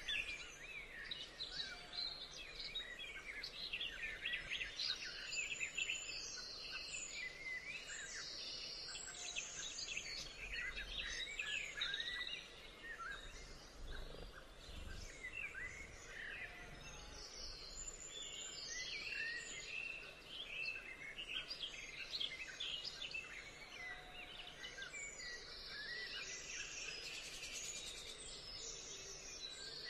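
A dense chorus of birds chirping and calling over one another, with many short whistles and some brief high buzzing trills.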